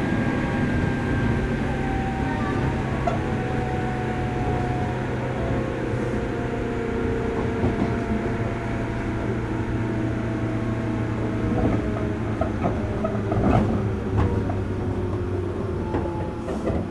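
Running sound of a 103 series electric train heard from aboard its motor car: a steady rumble with a whine that slowly falls in pitch as the train slows. A few clicks of wheels over rail joints come near the end.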